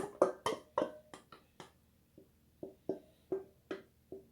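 A spoon tapping repeatedly against a dish, about a dozen sharp ringing taps at two or three a second, the loudest in the first second and a half.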